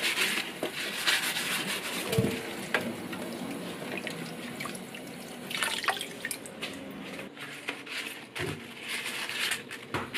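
Zongzi leaves being washed by hand with a sponge in a metal basin of water: irregular splashing, dripping and wet rubbing, with a few louder splashes as leaves are lifted out.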